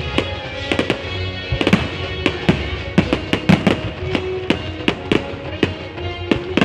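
Fireworks bursting in a rapid, irregular string of bangs, several a second and thickest in the middle, over steady music.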